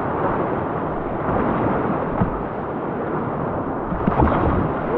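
Rushing whitewater of a river rapid around a small canoe running through it, with waves splashing against the bow.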